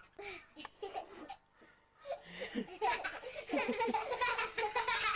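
People laughing: a few short vocal sounds, then hearty, sustained laughter starting about two seconds in.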